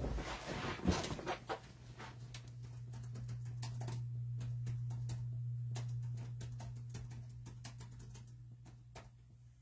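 A short burst of rustling handling noise with a knock about a second in, then scattered light clicks over a steady low hum that swells and fades.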